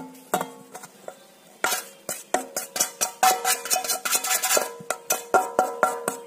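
Stainless steel bowls clinking and a utensil scraping and tapping against the steel bowl as flour is emptied into it. A few clinks in the first second and a half, then a quick run of sharp clinks that ring on briefly.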